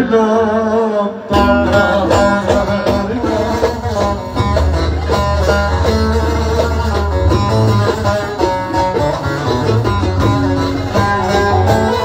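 Live band music, loud: a quick plucked long-necked lute melody over a steady bass line, with the full band coming in strongly about a second and a half in.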